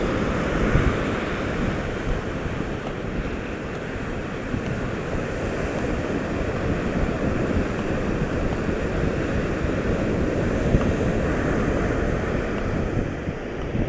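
Ocean surf breaking on a sandy beach, a steady wash of waves, with wind buffeting the microphone.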